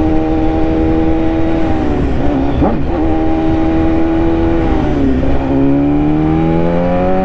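BMW S1000RR's inline-four engine running through its new Racefit exhaust while the bike is ridden at road speed. The engine note dips about two seconds in, returns, dips again about five seconds in, then climbs steadily as the bike pulls on.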